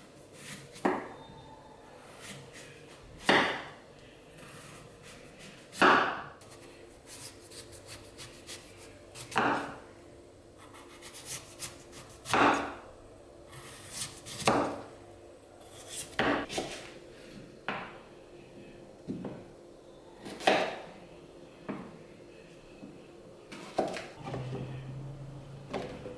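Knife cutting on a wooden cutting board: single sharp knocks every two to three seconds, with a few lighter taps between them.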